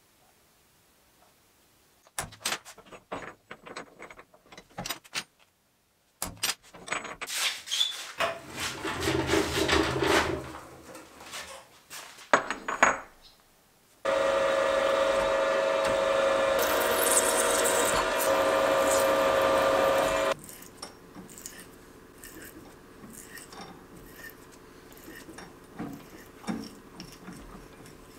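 Small clicks and scraping of a steel part being marked out with a scriber, then a milling machine's spindle drilling into the steel die holder with a twist bit: a loud, steady motor whine that starts and cuts off suddenly after about six seconds. Quieter shop noise with faint clicks follows.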